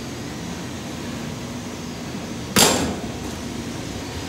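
One sharp clack of the metal latch handle on a 3D printer's filament-compartment door as it is unlatched and pulled open, about two-thirds of the way in. A steady machine hum runs underneath.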